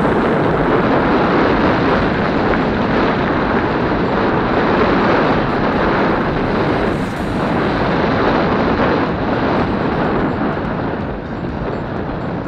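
Loud, steady rush and rumble of wind buffeting a helmet-mounted action camera's microphone as a mountain bike rolls fast down a gravel fire road, mixed with the tyres' crunch on the gravel.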